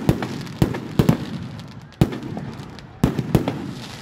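Fireworks going off: a run of sharp, loud bangs, irregularly spaced, each with a short echoing tail.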